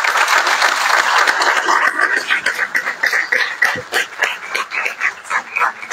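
Audience applauding: a dense patter of clapping that thins to scattered single claps toward the end.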